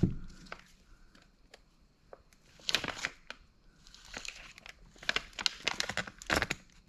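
Plastic packaging of a connecting rod being opened and handled: irregular crinkling and rustling of plastic, with a few sharp clicks, in bursts about three seconds in and again through the second half.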